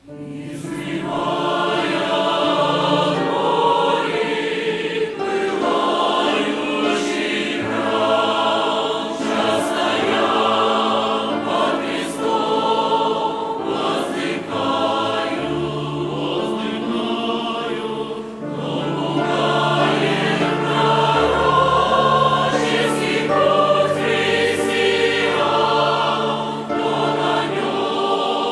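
A choir singing a Christian song with musical accompaniment. It comes in at full level right at the start and carries on steadily.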